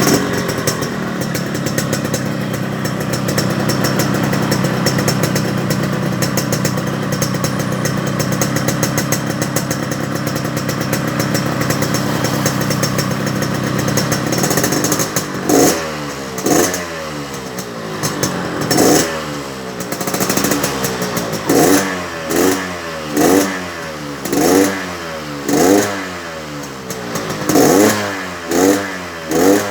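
Motorcycle engine held at a steady speed, then revved in short throttle blips about once a second from about halfway through. It has been tuned for a crisp, raspy ('garing ngorok') exhaust note.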